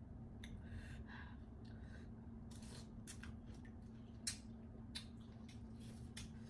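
Eating sounds from a pounded apple salad: crisp chewing crunches and a spoon scraping and clicking in a glass bowl, heard as a scattering of faint, short crackles and clicks over a faint steady hum.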